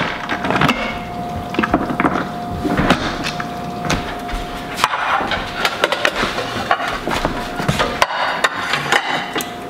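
Kitchenware being handled: irregular knocks, clicks and clinks as the stainless Instant Pot's lid is worked and plates and utensils are set down on a stone counter. A faint steady tone runs underneath until about eight seconds in.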